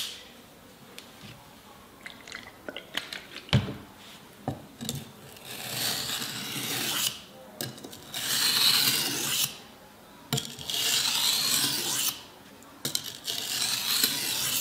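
A soft-steel kitchen knife blade drawn along a cheap hardware-store sharpening stone, about four long scraping strokes starting about five seconds in, with a few light clicks and taps before them. These are edge-trailing stropping strokes on the stone, meant to push the leftover burr outward off the edge.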